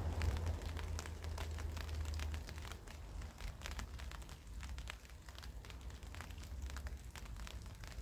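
Rain falling, with many separate drops ticking and crackling on nearby surfaces over a steady hiss. A low rumble underneath eases about two and a half seconds in.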